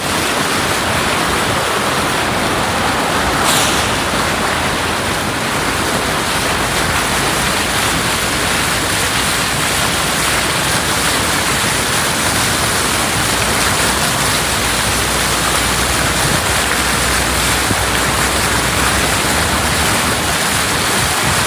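Car moving along a flooded road, its tyres sending up a steady loud rush of water, with one brief sharp hiss about three and a half seconds in.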